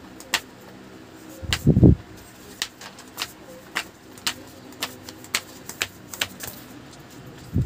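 Flip-flops slapping a hard floor as a child hops and dances, sharp slaps at roughly two a second, with one heavier low thump about two seconds in.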